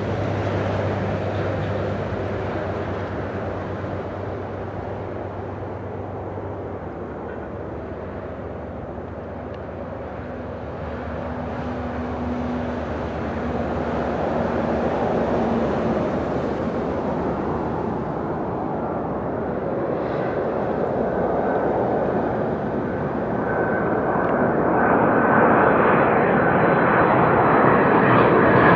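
Boeing 767-300 airliner on final approach, the rush of its two jet engines growing louder as it draws near. A steady high engine whine comes in over the last several seconds.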